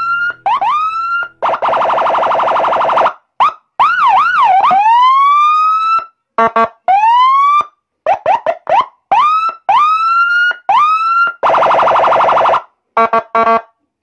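Senken 100-watt electronic police escort siren sounding through its 100-watt speaker, switched between tones from its push-button control box: short rising whoops, a warbling up-and-down wail, slower rising sweeps, two buzzing horn blasts of about a second each, and quick pulsed bursts, with brief gaps between tones. Loud.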